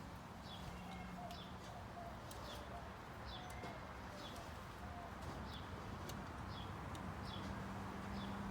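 A bird chirping again and again, a short falling chirp about every half to three-quarters of a second, over a faint steady low hum.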